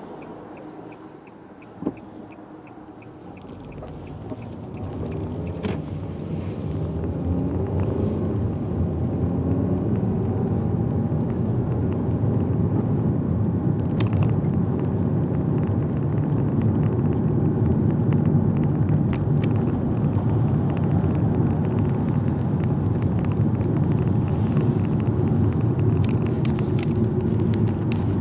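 Car engine and road noise heard from inside the cabin: quiet at first with a single click, then from about four seconds in the engine rises in pitch and the rumble builds as the car picks up speed, settling into a steady low rumble at cruising speed.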